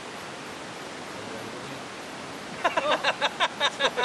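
Steady rush of river water. About two-thirds of the way in, a rapid run of short, high pitched calls, about seven a second, starts and becomes the loudest sound.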